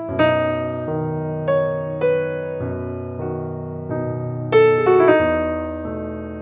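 Background music: slow solo piano, single notes and chords struck about once a second and left to ring out, with a louder chord about four and a half seconds in.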